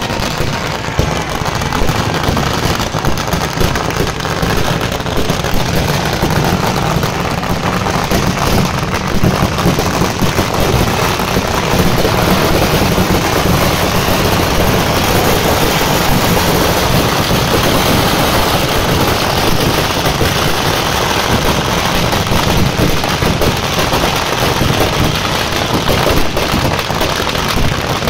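Firecrackers packed inside a burning Ravana effigy going off in a dense, continuous barrage of loud bangs and crackles that never lets up.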